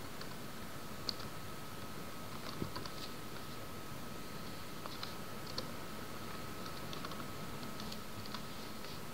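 Computer keyboard keys clicking in scattered, irregular keystrokes as code is typed, over a faint steady tone and background hiss.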